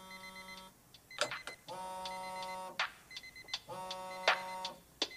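Phone alarm ringtone: an electronic chime phrase of held tones repeating about every two seconds, with short beeps and clicks between.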